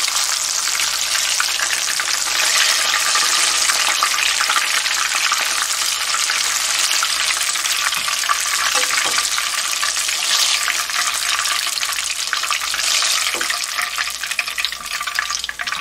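Batter-coated banana pieces frying in shallow hot oil in a frying pan: a steady, dense sizzle, with a few light knocks of chopsticks and tongs against the pan. The fritters are nearly done, and the sizzle drops off near the end as the last pieces are lifted out.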